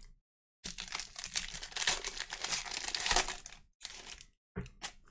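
Foil wrapper of a trading-card pack being torn open and crinkled by hand: a dense crackling rustle for about three seconds, then a few short rustles.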